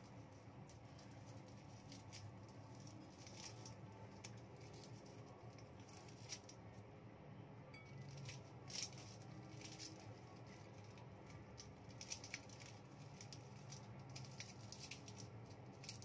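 Faint, scattered clicks and rustles of hands peeling and knotting green plant stalks over a wooden chopping board, with a few sharper taps on the board, over a low steady hum.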